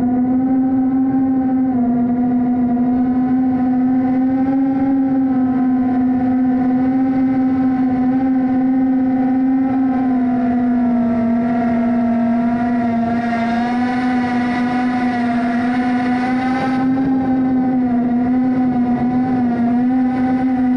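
Whine of a small FPV quadcopter's brushless motors and propellers (GEPRC Smart 35 HD, 3.5-inch props), heard from on board the drone as it cruises. The pitch holds nearly steady with small dips, then begins to rise right at the end.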